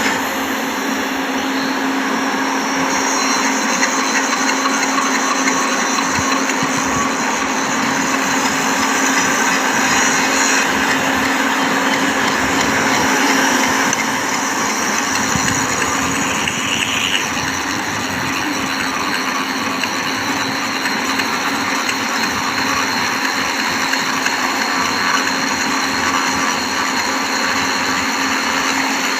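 Power grinder running steadily against a steel rail end, grinding the joint face clean in preparation for flash butt welding. A constant motor hum sits under a dense, even grinding hiss, with no pauses.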